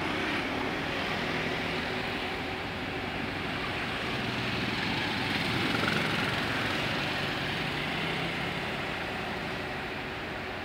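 Motor scooter and motorcycle engines passing along a street over a steady hiss, loudest about six seconds in as one rides close by.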